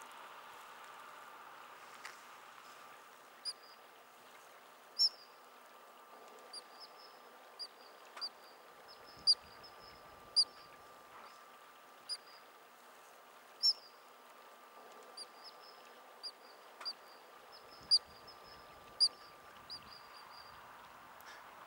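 Short, high chirping animal calls repeated irregularly, roughly one a second, some much louder than others, over a faint steady background hiss.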